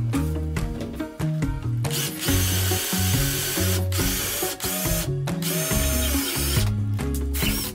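Cordless drill boring through a wooden wall stud. It runs in two long stretches with a short break between them, then stops. Background music with a bass line plays under it.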